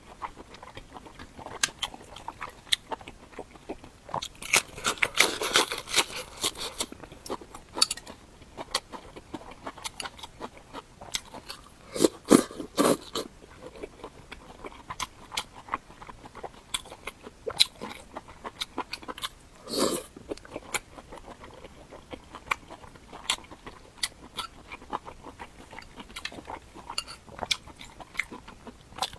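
Close-miked eating sounds: a person biting and chewing food, with many short wet mouth clicks, a dense run of chewing near the start and a few louder bites later on.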